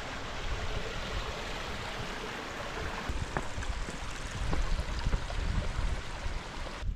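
Steady rushing of snowmelt water running over and under granite boulders, with a few light clicks from about three seconds in.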